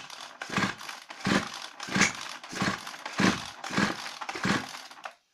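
Two-stroke chainsaw's recoil starter cord pulled about eight times in quick even strokes, the engine turning over against compression without firing. It is being cranked to check for ignition spark at a spare plug fitted in the plug cap.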